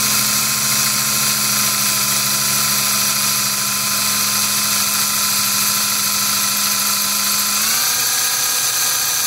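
Electric drill running steadily with a 5/32 bit, drilling through the pins of a lock cylinder to open it. Its motor gives a steady whine that rises a little in pitch near the end.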